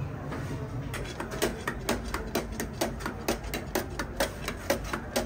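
A broad metal blade chopping and tapping through shredded kadayif pastry onto a metal künefe tray. The sharp, slightly ringing metal taps start about a second in and come about four times a second, over a steady low rumble.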